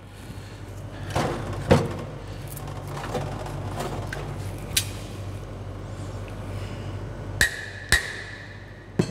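A rubber mallet knocking a wooden spigot tap into the tap hole of a small wooden barrel: a few separate sharp knocks, with two about half a second apart near the end that ring briefly. Softer clunks of the barrels being handled on a steel sink come between them.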